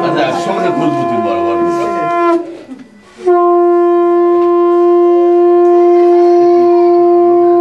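Conch shell (shankha) blown in long, steady, loud blasts on a single note. The first blast ends about two and a half seconds in, and after a short breath a second blast holds on.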